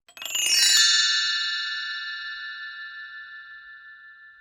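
A bright bell-like chime struck once, a cluster of high ringing tones that sound together and slowly fade away.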